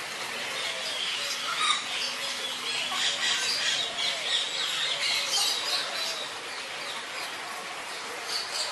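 Birds calling: a steady run of short chirps and squawks.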